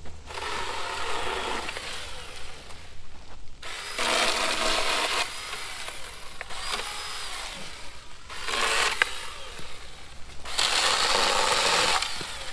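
Seesii battery-powered mini cordless chainsaw running in short bursts of a second or two, each spinning up and winding down, as it cuts through dry brush-pile branches.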